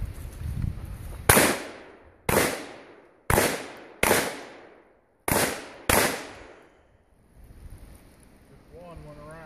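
Six shotgun shots fired at a steel plate rack, roughly a second apart with a pair close together near the middle, each dying away over about a second.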